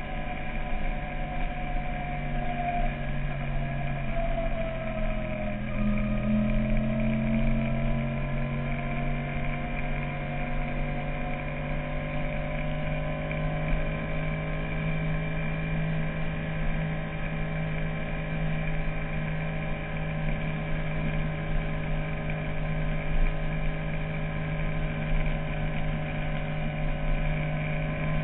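Yamaha YZF-R1 inline-four sportbike engine heard from on the bike while cruising at steady speed. Its pitch dips and recovers about four to six seconds in, then holds level.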